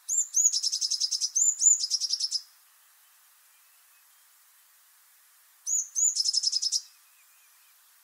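Blue tit singing: three song phrases, each of a couple of thin, high notes followed by a fast, slightly lower trill. Two phrases come back to back, then a third follows after a pause of about three seconds.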